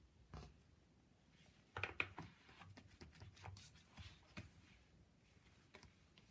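Faint handling noises of art supplies: a few light knocks, taps and rustles, busiest about two seconds in.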